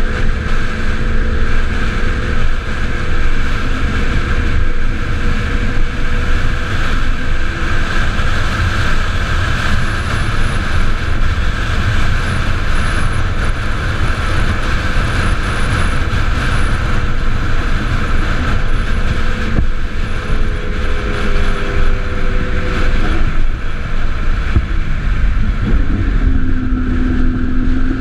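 Onboard sound of a solar-powered electric race car running at speed: heavy wind noise on the body-mounted microphone and road rumble, with faint whining tones that drift and glide in pitch near the end.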